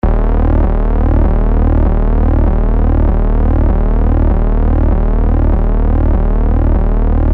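Electronic ambient music: sustained synthesizer tones over a deep bass that swells in a steady pulse, with sweeping tones above.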